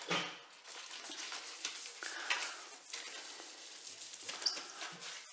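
Alcohol wipe being rubbed back and forth over the painted metal roof of a Nissan Navara NP300 pickup, a quiet scratchy rubbing. The surface is being cleaned of polish and grease before adhesive bonding.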